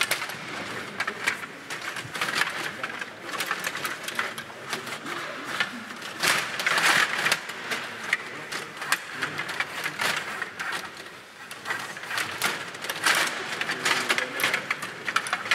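STIGA table hockey game in play: a dense, irregular clatter of clicks and knocks from the control rods and plastic players, with the puck striking sticks and boards, in louder flurries about six seconds in and again near the end.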